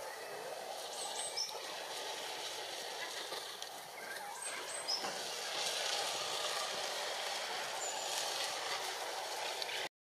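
A flock of white-cheeked starlings calling, with a few short, high squeaky calls about a second in and again around five seconds, over a steady rushing background noise. The sound cuts off abruptly just before the end.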